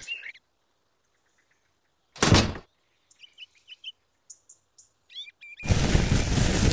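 A toy cement mixer is set down with a single thunk, faint bird chirps follow, then dry granular mix is poured into the mixer's metal can drum with a loud, steady hiss for about two seconds near the end.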